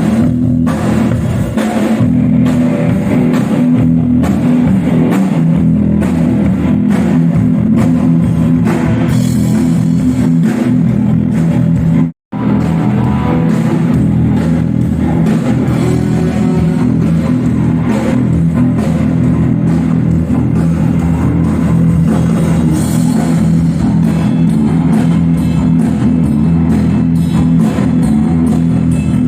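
Rock band playing live, with electric guitar, bass and drum kit. The sound cuts out for a moment about twelve seconds in.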